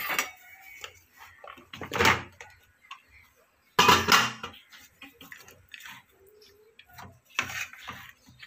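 Kitchen utensil sounds: a wooden spatula scraping and stirring cooked poha in a non-stick kadai, with steel dishes clinking, in a few separate scrapes and clatters.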